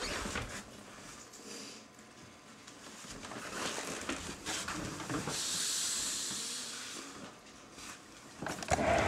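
Ball python hissing as it breathes out while swallowing a mouse: one soft hiss about halfway through that swells and fades over roughly two seconds.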